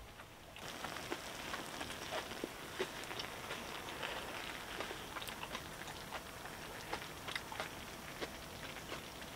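Green-onion bulgogi with glass noodles sizzling and bubbling in its broth in a shallow pan over a gas burner: a dense crackle of small pops that starts about half a second in.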